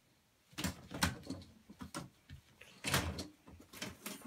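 Curtains being pulled open along their rail, a series of irregular sliding scrapes and rustles, the strongest about a second in and about three seconds in.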